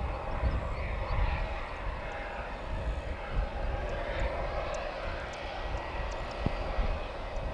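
Boeing 767 jet engines running steadily, a continuous rumble with a faint steady whine above it.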